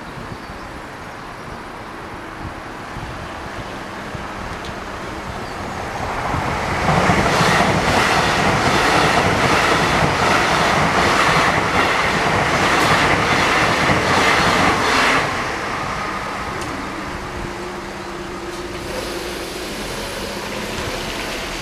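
Class 800 express train approaching and passing at speed, its wheels clicking in a steady beat over the rails. It swells over a few seconds, is loud for about eight seconds as the carriages go by, then drops away quickly as the train goes past.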